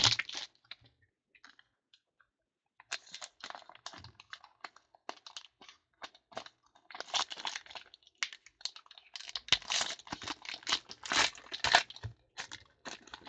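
Clear plastic wrap and a foil trading-card pack wrapper crinkled and torn open by hand: a burst of crinkling at the start, then after a short pause a long run of irregular crackles and crinkles.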